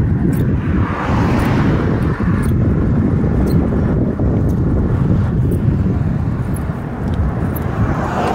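Wind rumbling on the microphone of a camera riding on a moving bicycle, with tyre and road noise, a steady loud low rumble.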